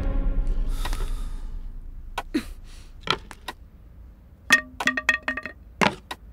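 Background music fading out, then small hard objects clinking as they are handled and gathered up: a few scattered clicks and a quick run of ringing clinks about four and a half seconds in.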